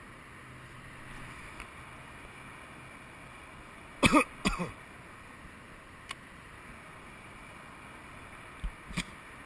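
A person coughing twice in quick succession about four seconds in, over a steady low background hiss, with a few faint sharp clicks.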